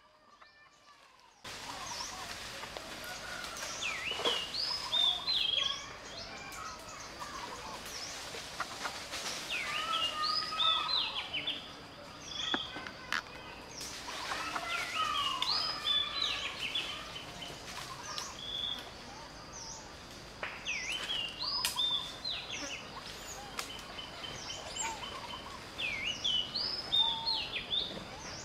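Many birds chirping and calling, short whistled notes overlapping in a busy chorus over a steady outdoor hiss, with a faint steady high note behind. It starts suddenly about a second and a half in.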